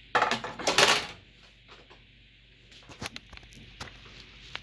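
Handling noise from computer parts on a workbench: a loud rustling scrape lasting about a second, then a few light clicks and taps.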